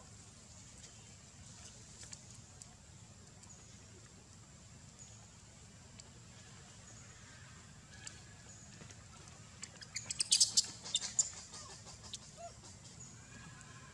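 Quiet outdoor background with a faint steady high tone, broken about ten seconds in by a brief burst of sharp crackling and rustling.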